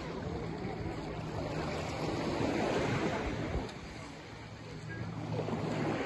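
Small waves washing over a pebble shore in shallow sea water, swelling about two seconds in and dropping off suddenly just past halfway. A steady low hum runs underneath.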